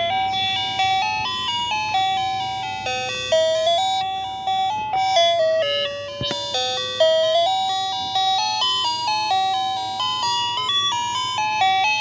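Toy alarm clock playing its electronic alarm melody: a simple tune of single bell-like notes, each striking and then fading.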